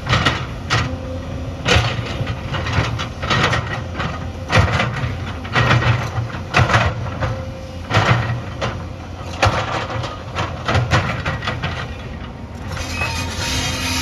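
Excavator engine running under a string of irregular knocks and clatter, about one or two a second, from the machine working among stones. Near the end the knocks stop and only a steadier engine drone remains.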